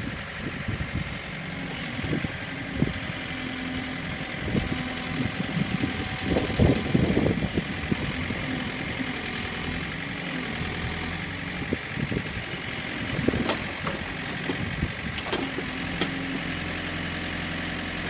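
Backhoe's diesel engine running steadily, with a string of sharp knocks and clatters as the bucket is jabbed into the dirt, heaviest in a burst in the middle of the stretch.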